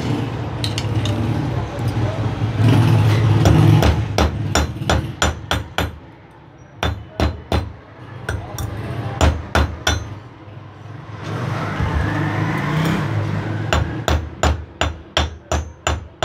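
Runs of sharp metal-on-metal taps, a few a second, as a steel wire is knocked and bent into a hook against a cast-iron edge. A low steady hum lies under the first few seconds and again near the middle.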